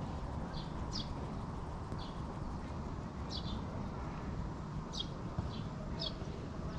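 Small birds chirping in the background: short, high, falling notes every second or so, over a steady low rumble of ambient noise.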